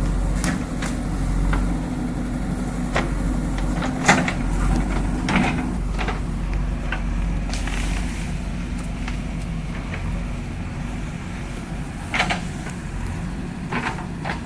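JCB backhoe loader's diesel engine running steadily, with a few sharp knocks or cracks scattered over it.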